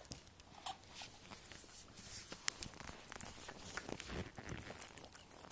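Faint scattered clicks and light knocks of a red rubber Kong dog toy being handled, first mouthed by a dog, then picked up by hand.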